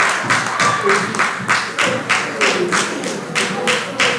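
Congregation clapping in a steady rhythm, about four claps a second, with voices or music wavering underneath.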